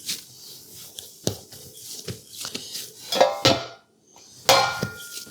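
A metal bread pan clanking on a kitchen counter, ringing briefly twice, among lighter knocks from handling.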